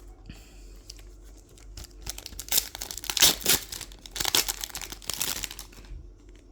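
Foil Pokémon booster pack wrapper being torn open and crinkled: a run of crackly rustling from about two seconds in, fading near the end.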